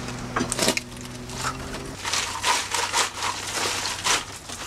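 Shellfish clumps being broken apart and sorted by gloved hands, shells crunching and clattering against each other, thickening into dense crunching about halfway through.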